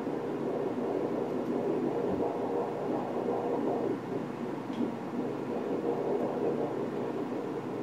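Pulsed-wave Doppler audio from a Philips ultrasound machine during fetal echocardiography: the pulsing sound of a 20-week fetus's blood flow through the heart.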